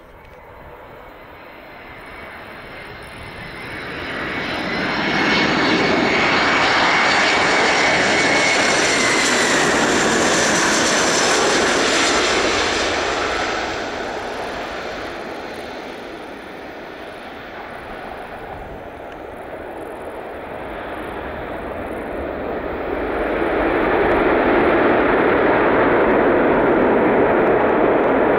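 Airbus A321's CFM56 turbofan engines on a landing pass. The jet noise builds as the aircraft nears, then holds loud with a whistling whine that falls in pitch as it goes by. It eases after touchdown, then swells loud again near the end as the engines spool up, typical of reverse thrust on the landing roll.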